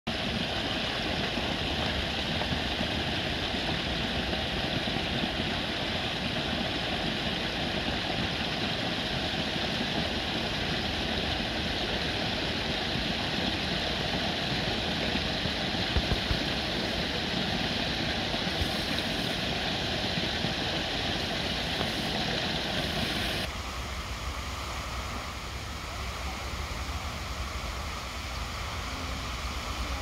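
Small garden waterfall splashing steadily over rocks into a shallow pool. About three-quarters of the way through the sound changes abruptly to a quieter, duller water noise with a low rumble: the spray of a tall pond fountain falling back onto the water.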